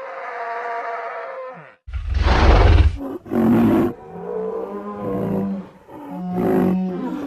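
Stegosaurus creature sound effects, made from stegosaurus and woolly rhinoceros sounds: a long, steady-pitched call, then a loud harsh call over a deep low rumble about two seconds in, followed by several shorter calls.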